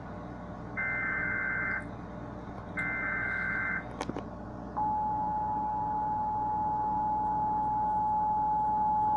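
Emergency Alert System tones: two one-second bursts of the SAME digital header, then, about halfway through, the steady two-tone EAS attention signal starts and holds. It announces a tornado warning.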